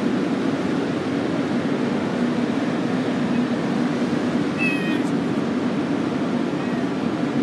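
A kitten gives a short, high mew about two-thirds of the way through, and a fainter one near the end, over a steady low background hum.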